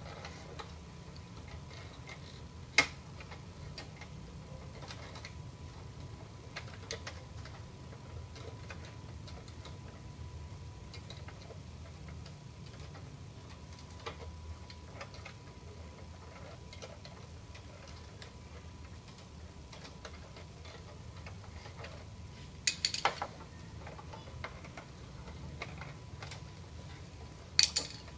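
Scattered small plastic and metal clicks and taps from hands working inside an opened Epson L210 inkjet printer's mechanism, with a sharp click about three seconds in and a quick run of louder clicks near the end, over a low steady hum.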